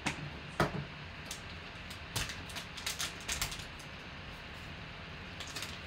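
Crinkling and crackling of a black foil trading-card pack wrapper being handled as a card is slid out of it, in scattered short crackles with a cluster about two to three and a half seconds in.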